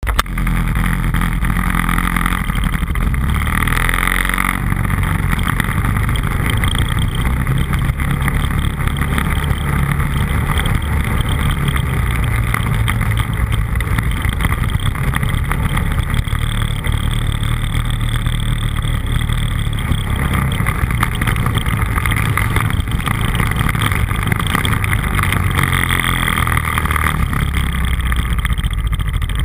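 Off-road vehicle's engine running steadily while riding along a snowy trail, picked up by a camera mounted on the vehicle.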